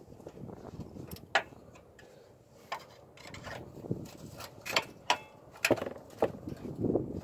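Scattered sharp metal clinks and scrapes: a screwdriver working against the pivot bolt and plate of a truck's upper control arm mount, about half a dozen distinct clinks spread irregularly.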